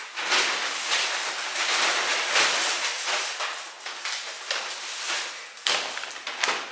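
Paper grocery bags rustling and crinkling as they are carried in and set down on a counter, with two sharper knocks near the end as they are put down.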